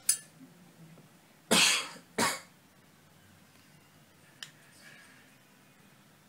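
A person coughing twice in quick succession about a second and a half in, after a sharp click at the start. A small tap follows a couple of seconds later.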